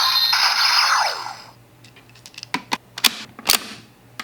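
A toy Gaia Memory's electronic sound effect plays loudly from its small speaker and ends with a falling tone about a second and a half in. Several sharp plastic clicks follow as the toy is handled.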